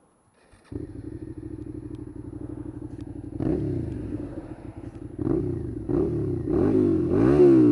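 Suzuki SFV650 Gladius V-twin engine with an IXIL dual-pipe aftermarket silencer starting up less than a second in and idling steadily. From a few seconds in it is given several throttle blips, each rising and falling in pitch, the last one the loudest.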